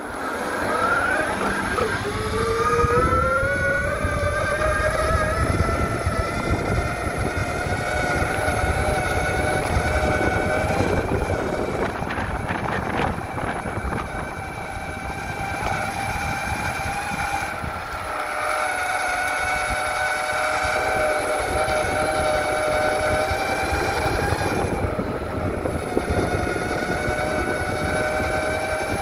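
Electric mountainboard's motors whining as it rides, the whine rising in pitch over the first few seconds as the board speeds up, then holding nearly steady with small rises and dips. Underneath is a steady rumble from the off-road wheels rolling over the ground.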